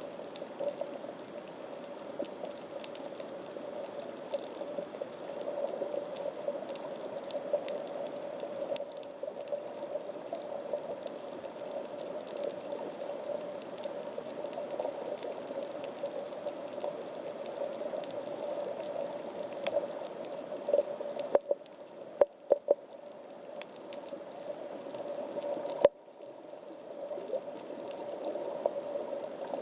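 Underwater ambience of a coral reef at about 15 m depth, recorded through a 360° camera's waterproof housing: a steady hiss with a constant scatter of faint clicks and crackles, and a few louder clicks about 21 to 23 seconds in and once more near 26 seconds.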